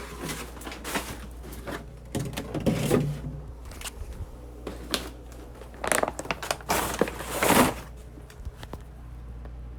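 Irregular rustling and crinkling noises in two main bursts, over a steady low hum.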